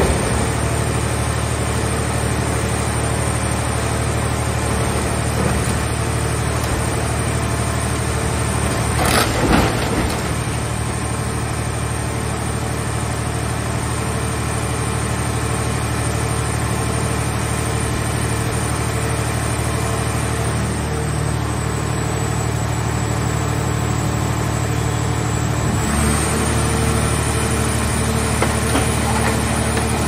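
Hydraulic scrap-car baler running with a steady, loud hum from its motor and pump as its press lid folds down and compresses a car body. A short loud crunch of metal comes about nine seconds in, and the machine's note shifts near the end.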